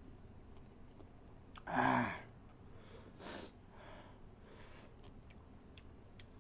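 A man's short voiced sigh about two seconds in, then several quieter breathy exhales through the lips, with a few faint clicks.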